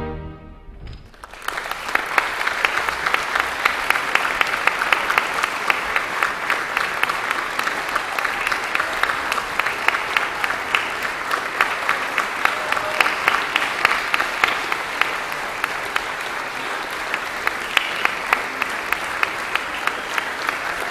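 Audience applause that breaks out about a second in, as the orchestra's final chord dies away, and then keeps going steadily with dense, even clapping.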